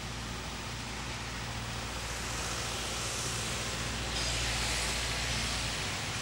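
Heavy diesel truck engine running steadily with a low hum, under a hiss that gets louder about four seconds in.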